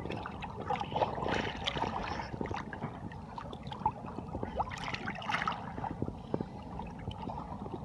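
Sea water sloshing and gurgling around a camera held at the surface, half in and half out of the water, with many small clicks and splashes and a few louder sloshes.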